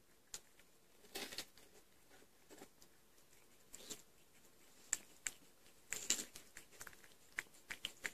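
A tortoise biting and chewing watermelon flesh: soft, wet, crunchy bites at irregular intervals, about one a second.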